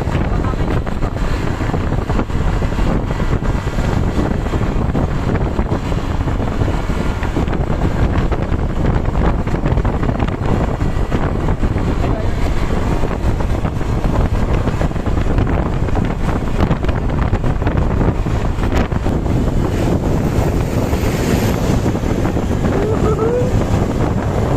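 Wind buffeting the microphone over a steady low rumble of road traffic, loud and unbroken, with a few faint rising squeaks near the end.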